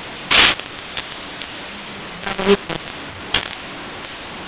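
Small sounds around a meeting table over a steady room hiss: a short noisy rustle or burst near the start, a brief murmur about halfway through, and a single click a little after three seconds.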